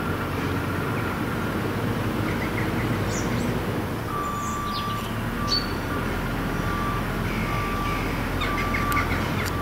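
Birds chirping over a steady low rumble, with a steady high tone that repeats in short dashes through the second half.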